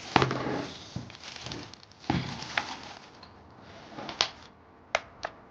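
Plastic packaging around a new keyboard rustling and crinkling as it is handled, with several sharp clicks and taps, a few of them near the end.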